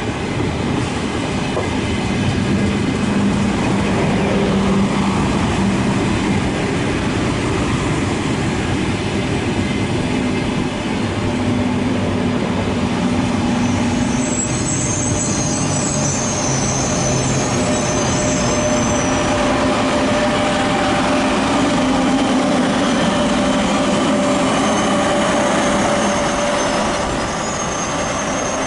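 A train running through the station, wheels clattering over the rail joints in a steady, loud rumble. A high-pitched wheel squeal comes in about halfway through and returns faintly near the end.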